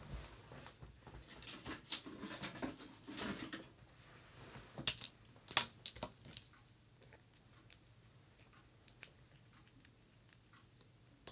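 Hands handling small craft items: a clear plastic compartment case of rhinestones, a glue pen and a bamboo skewer. Soft rustling for the first few seconds, then scattered light clicks and taps.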